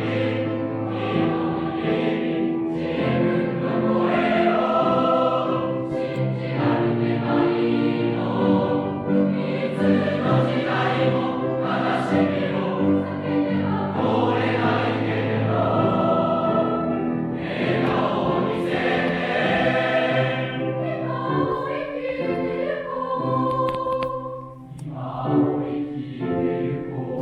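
A choir singing a slow piece in long, held chords.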